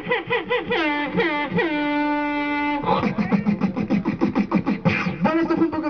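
Beatboxing into a handheld microphone: fast mouth-percussion beats mixed with falling vocal swoops, a single held hummed tone for about a second near the middle, then a dense run of quick beats.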